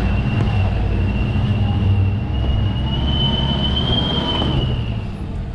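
Jeep's engine running steadily as it drives along a muddy track. Over it is a steady high-pitched squeal that rises slightly in pitch about three to four seconds in and fades out near the end.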